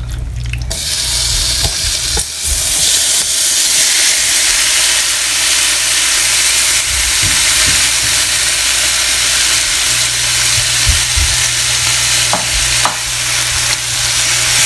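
Marinated fish pieces hitting hot oil in a non-stick frying pan and frying. The sizzle starts about a second in and keeps going as a steady hiss. Near the end a spatula stirs the pieces, with a couple of light knocks.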